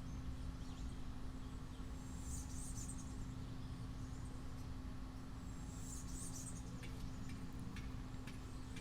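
Outdoor background: a steady low rumble with a constant hum underneath, and short clusters of high chirps about two and a half and six seconds in, with a few faint ticks near the end.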